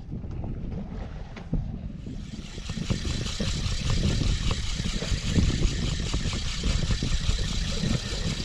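Boat engine running, with a rushing hiss of wind and water that builds from about two seconds in as the boat picks up speed.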